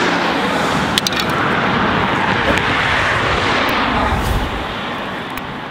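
Motor traffic passing close by: a loud, steady rush of tyre and engine noise that swells around the middle and eases off near the end, with a couple of sharp clicks about a second in.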